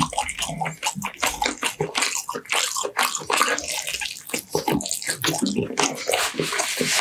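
Close-miked wet chewing and lip-smacking while biting roast chicken off the drumstick bone: a dense, irregular run of moist clicks and smacks.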